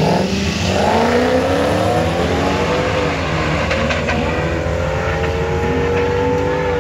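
Two forced-induction drag cars, one of them a first-generation Chevrolet Camaro, launching at full throttle side by side. Their engines rev up in pitch, drop at a gear shift about three seconds in, then climb again as the cars pull away down the track.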